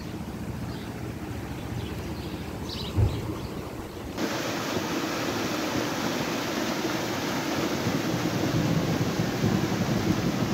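Light wind outdoors with a few faint chirps and a brief thump, then, about four seconds in, an abrupt change to the loud, steady rush of a flash-flooded arroyo running high with muddy water.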